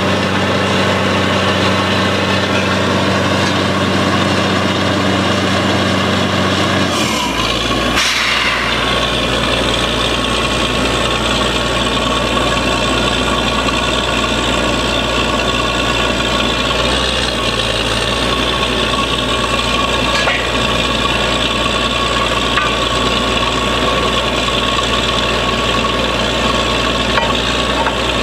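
Borewell drilling rig's engine running loud and steady. About seven seconds in the sound changes abruptly with a brief falling whoosh, and the machine then runs on at a steady pitch.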